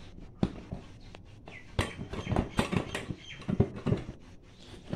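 Irregular knocks and clicks from a Yamaha MT-15's seat being handled and worked loose by hand. About eight sharp knocks, most of them bunched in the middle of the stretch.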